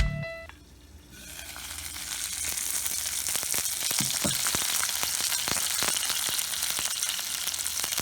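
Food frying in a cast-iron skillet: a steady sizzle with many small crackles and pops, swelling in over the first couple of seconds. A drum-led music track cuts off right at the start.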